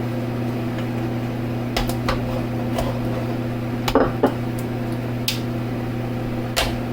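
A steady low electrical hum with scattered light clicks and knocks, like small items being picked up and set down on a hard surface.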